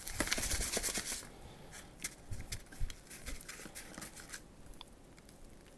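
Scotch egg being rolled by hand through breadcrumbs in a plastic tub: a dry rustling and scraping, loudest in the first second, then fainter scattered rustles and light taps.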